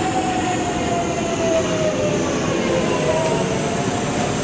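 Electric commuter train moving slowly along the platform, its traction motors whining in several tones that fall steadily in pitch as it slows, over wheel and rail noise.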